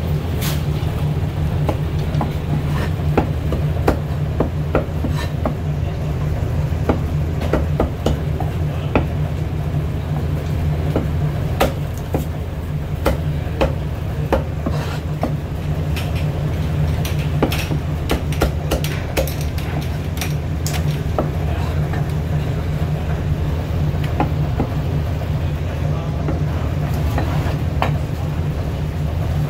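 Chinese cleaver chopping and tapping roast goose on a thick wooden chopping block: irregular sharp knocks, some spaced out, some in quick runs. A steady low machine hum runs underneath.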